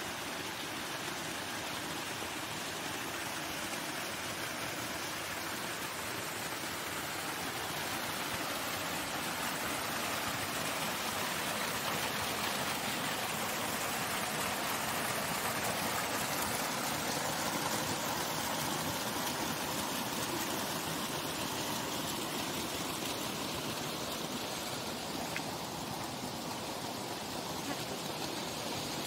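Irrigation water gushing and splashing steadily: a pipe spilling into an overflowing plastic drum and water running down a grassy bank, a continuous rush with no break.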